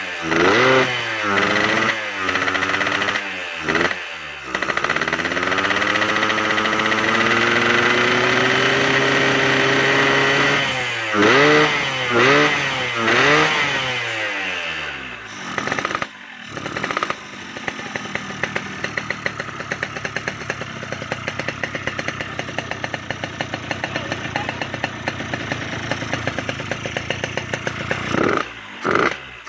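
Yamaha RX-King's two-stroke single-cylinder engine, breathing through a big PWK 35 carburettor, revved in quick throttle blips and one longer rising rev of about six seconds. It then settles into an idle with a fast, even popping beat, and is blipped again near the end.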